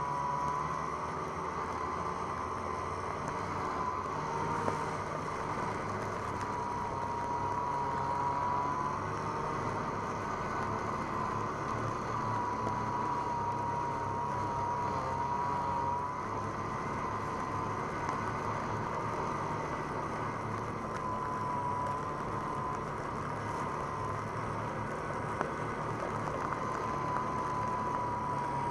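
Snowmobile engine running steadily under load while towing a snowboarder, heard from on the machine. A wavering high whine comes and goes over it.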